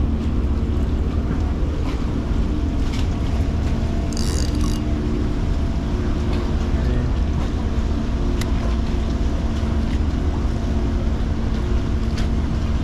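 A boat engine idling, a steady low hum and rumble, with a few light clicks and a brief high hiss about four seconds in.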